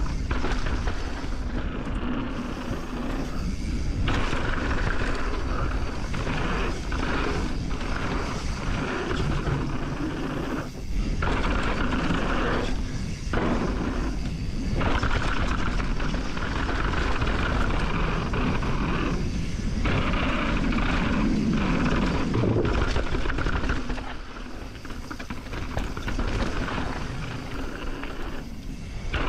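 A mountain bike descending a dirt freeride trail, picked up by a GoPro on the rider: a steady rush of wind and trail noise that drops out briefly a few times.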